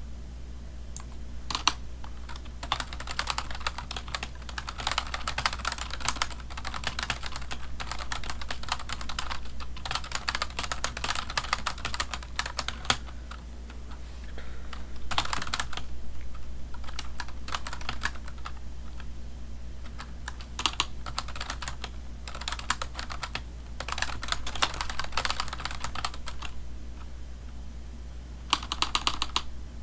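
Computer keyboard typing: runs of quick keystrokes, each lasting a second or a few seconds, broken by short pauses. A steady low hum sits underneath.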